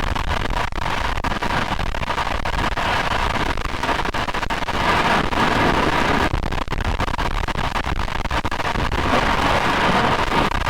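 Honda CRF450RL's single-cylinder four-stroke engine running on the move, nearly buried under wind buffeting on the microphone: a steady rush with a dense crackle through it.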